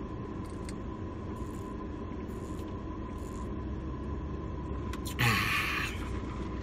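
Steady low background rumble with a faint steady tone and a few light ticks. About five seconds in comes a short, louder hissing rush lasting under a second.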